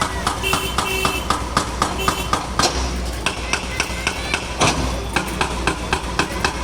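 Concrete breaker hammering the old bridge's concrete, a fast regular train of sharp blows about four a second over a steady low engine hum.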